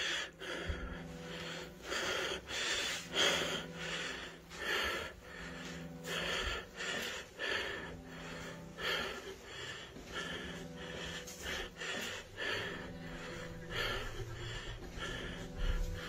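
A dog panting in quick, uneven puffs, with a low steady tone that keeps coming and going underneath.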